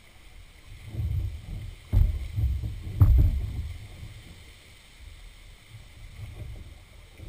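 A canoe being paddled through floodwater: low thuds and knocks of the paddle strokes against the hull, with two sharp knocks about two and three seconds in, then quieter water sounds.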